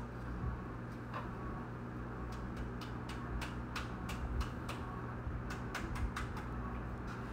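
Steady hum of a car cabin while driving, engine and road noise, with a dozen or so light ticks at uneven intervals.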